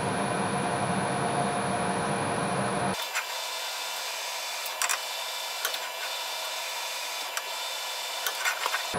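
Home-built CNC milling machine's spindle running a small end mill through steel, a steady machining noise with a high-pitched whine. About three seconds in the sound turns abruptly thinner, without its low end, with scattered sharp ticks, as the audio runs sped up.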